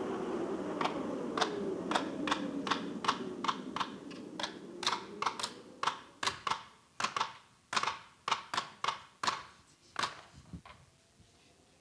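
Hammer blows driving nails: about twenty sharp strikes at an uneven pace of two or three a second, over a low drone that fades out around the middle.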